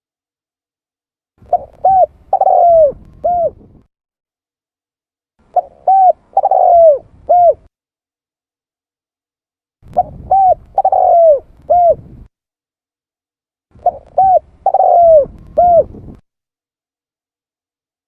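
Spotted dove (tekukur) cooing its lure call: four phrases about four seconds apart, each two short coos, a longer drawn coo, then a final short coo.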